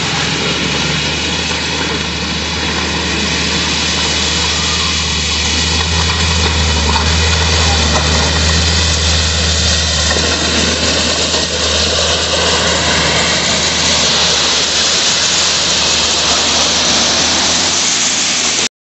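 Motor grader's diesel engine running steadily under load as it works gravel, with a deep low hum. It grows louder about five seconds in as the machine nears, then cuts off abruptly near the end.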